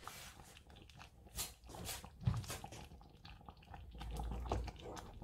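Wooden spoon stirring thick creamy peas in a stainless steel pot: irregular wet squelches and clicks of the spoon against the pan, with a dull thump a little over two seconds in.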